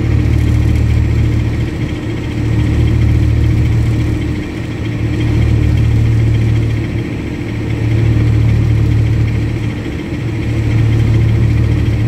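Mercedes-Benz O-400RSD coach's diesel engine idling steadily with a low hum that swells and fades every few seconds.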